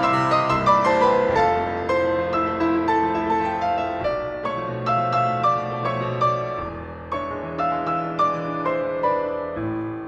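Grand piano played solo in classical style: a quick run of separate struck notes in the middle register over held bass notes.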